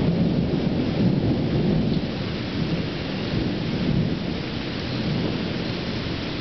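Thunderstorm: rain falling with a deep rumble of thunder that slowly fades.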